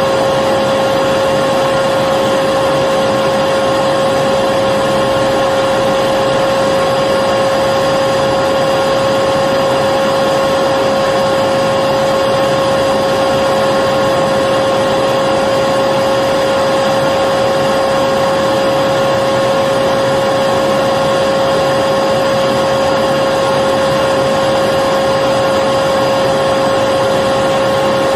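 Electric vacuum cleaner running steadily, a constant whooshing hum with a steady high whine from the motor.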